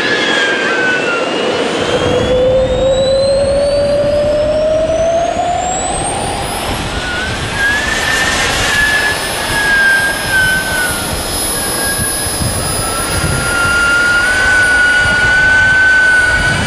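Turbine engine of a CARF J-10 radio-controlled model jet in flight: a steady rushing jet noise with a whine whose pitch rises over the first several seconds, then shifts and holds high.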